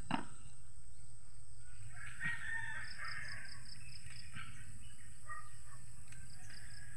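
A rooster crows faintly about two seconds in, a single call lasting a second or two, over steady low background noise.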